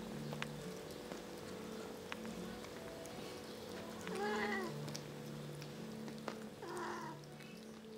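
Two kittens eating from a bowl, making low on-and-off humming sounds as they chew, with small clicks of chewing. About four seconds in comes a mew that rises and falls, and a shorter one near the end.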